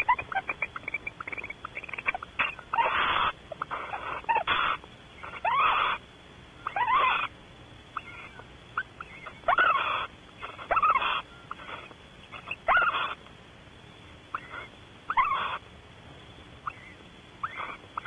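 Barn owl pair calling in the nest cavity around mating: repeated short calls, some raspy and hissing, some with a swooping rise and fall in pitch, one every second or two with a few quiet pauses between runs.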